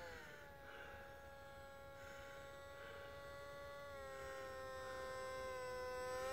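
Electric motor and propeller of a Hobbyking F6F Hellcat foam model plane in flight, a faint steady whine. Its pitch drops just after the start and steps down again about four seconds in, and it grows louder near the end as the plane comes closer.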